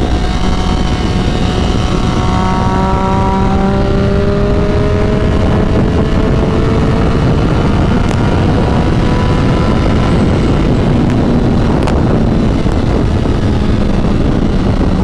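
Triumph Daytona 675R's inline three-cylinder engine pulling while under way. Its revs climb slowly through the first half, then hold steady, under heavy wind rush over the microphone.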